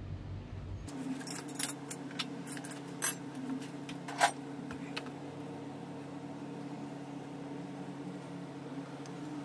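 Small metal parts or tools clinking and tapping against each other, a quick run of light clicks between about one and five seconds in, with two sharper clinks near the middle, the second ringing briefly. A steady low hum runs underneath.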